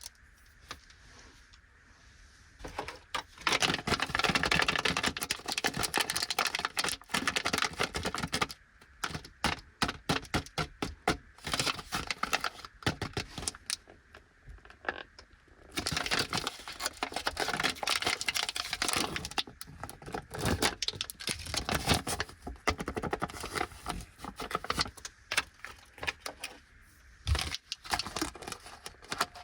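Plastic wrapper of a Fujiya Anpanman Pero Pero Choco chocolate lollipop crinkling as it is handled and opened, starting about three seconds in. Long stretches of dense crinkling alternate with scattered clicks and taps.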